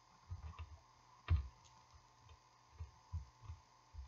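A scatter of soft knocks and light clicks from a pen and workbook being handled on a tabletop, with one sharper click a little over a second in.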